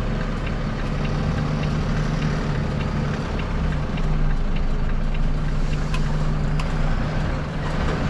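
Volvo FE 320 lorry's diesel engine running steadily, with a light tick about twice a second.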